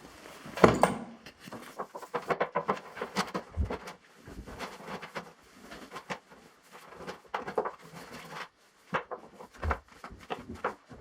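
Irregular knocks, clicks and rustling from things being handled, with one sharper knock near the start.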